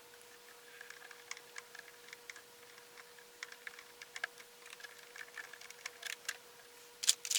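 Small irregular metallic clicks and scrapes of a stubby screwdriver fitting and turning the small screws that hold a new feed dog in a Singer Heavy Duty sewing machine. The clicks grow louder and closer together near the end, over a faint steady hum.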